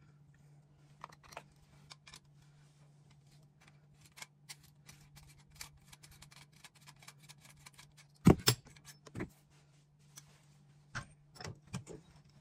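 Metal gun parts being handled: scattered small clicks and clinks, with a sharper metallic knock about eight seconds in and a few more clicks near the end, over a steady low hum.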